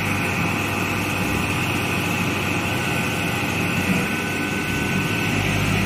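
Rice combine harvester's diesel engine running steadily while the machine is stuck in deep mud.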